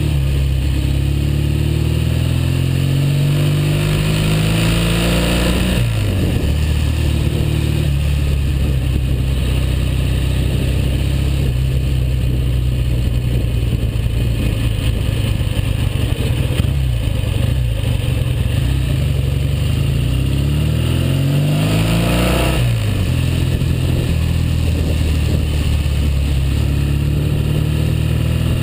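Norton Dominator 99's 600 cc parallel-twin engine running under load on the road, just rebuilt. Its revs climb, then fall sharply about six seconds in, as in an upshift. It runs steadily for a long stretch, then climbs and falls sharply again near the end before pulling up once more.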